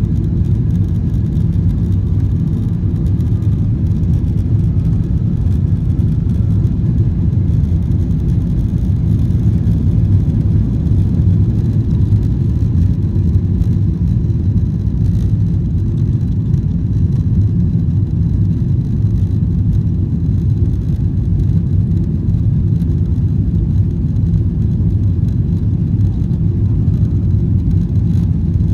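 Steady low drone of a Boeing 777-300ER's GE90 engines and airflow, heard from inside the passenger cabin, holding an even level throughout.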